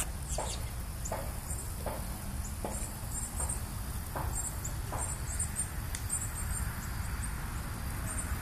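Outdoor ambience: a steady low rumble, small clusters of quick high chirps, and soft thuds about every two-thirds of a second over the first five seconds, like footsteps on soft muddy ground.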